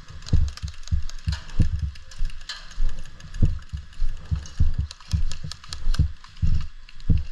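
Footsteps of a person walking at a steady pace, each step a dull thump about every 0.6 s as heard through a body-worn camera, with light rustling and clicks over them.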